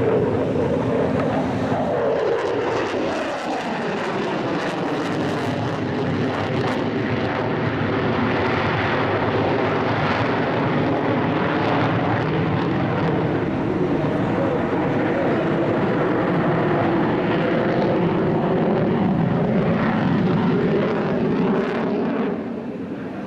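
Jet noise from a Boeing F/A-18F Super Hornet's two General Electric F414 turbofans in a display flight. A whine falls in pitch over the first few seconds as the jet passes, then a loud, steady jet noise follows and eases off near the end.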